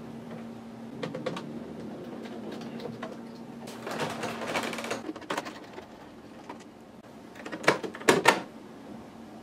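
Plastic housing of an HP Photosmart C5180 printer being worked apart by hand: a stretch of scraping and rubbing in the middle, then three sharp clicks near the end as the housing's plastic clips are pried loose.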